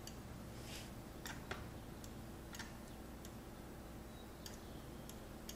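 A few faint, scattered computer mouse clicks over a faint steady low hum.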